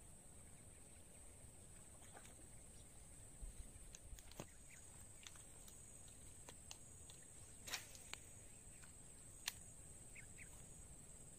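Near silence: a faint, steady high-pitched drone, with a few scattered faint clicks, the sharpest about nine and a half seconds in.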